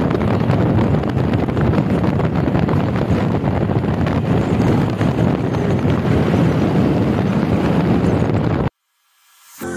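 Loud wind buffeting the microphone, a dense, even rumble without any tone, which cuts off abruptly near the end.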